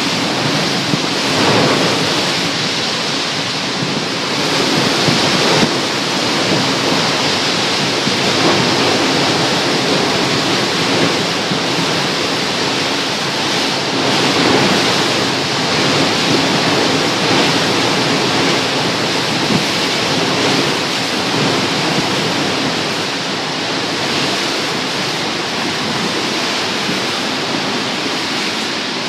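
Tropical-storm wind and heavy rain: a steady rush of noise that swells and eases slightly with the gusts.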